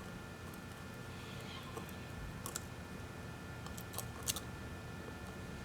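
Faint, sparse clicks and light scratching of a razor blade picking cracked camera lens glass out of an iPhone 8's back housing, a few sharp ticks standing out about two and a half and four seconds in.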